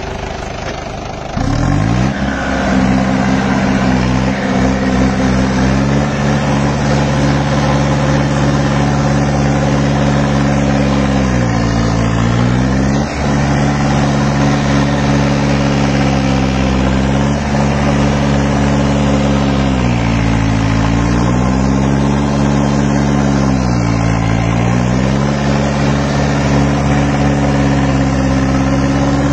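Mahindra tractor's diesel engine revved up sharply about a second in and held at high speed while pulling a rear implement through soil. The engine drops in pitch three times under the load and picks back up each time.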